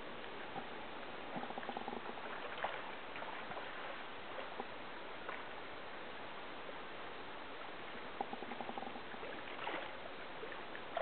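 Steady rush of fast-flowing glacial river current, with a few short knocks and splashes.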